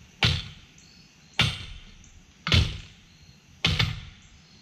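Four hammer blows on a steel T-bar threaded into a well's pitless fitting, about one a second, each a sharp metallic clank with a brief ring. The pitless fitting is stuck and is being beaten to knock it loose.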